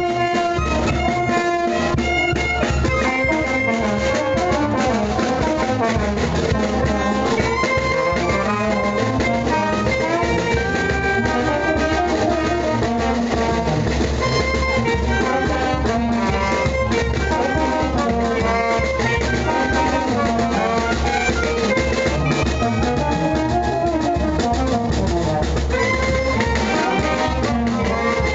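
Brass band music: trumpets and trombones playing a melody over drums, with an even beat throughout.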